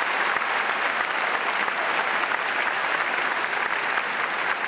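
An audience applauding, many hands clapping together steadily.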